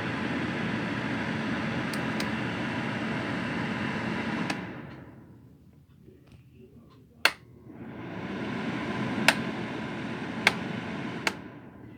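Tower space heater's blower fan running with a steady whir, winding down about four seconds in, then starting up again after a sharp click and running steadily. Several more sharp clicks follow, and the fan winds down again near the end.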